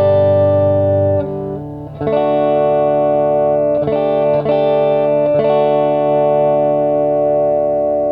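DIY Telecaster-style electric guitar playing sustained chords. A new chord is strummed about two seconds in, then a few more quick changes around four and five and a half seconds, and the last chord rings on and slowly fades.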